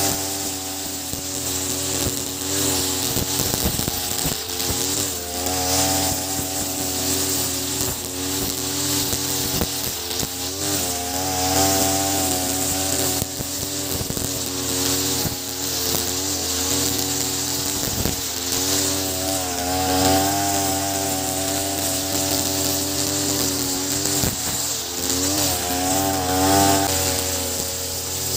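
Ogawa BG330 33cc two-stroke brush cutter running near full throttle while its 2.4 mm square nylon line cuts grass. The engine note swells up and drops back every few seconds as the throttle and cutting load change, over the hiss of the line through the grass.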